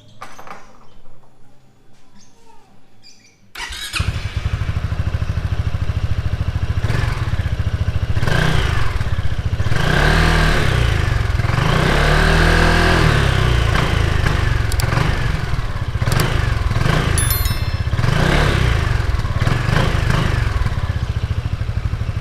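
Kymco Xciting S 400i scooter's 400cc single-cylinder four-stroke engine starting about three and a half seconds in, then idling with several rises and falls in revs.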